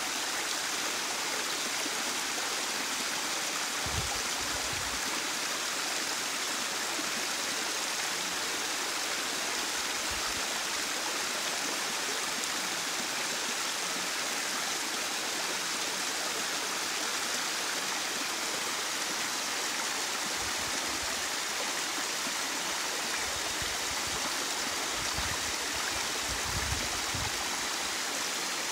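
Narrow hillside waterfall splashing down a rocky gully into a shallow stream: a steady, even rushing murmur, with a few brief low rumbles, heaviest near the end.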